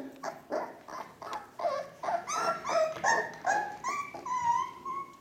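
Four-week-old Ca de Bou puppy whining: a quick run of short high cries, about three a second, growing louder after about two seconds and ending in one longer drawn-out whine.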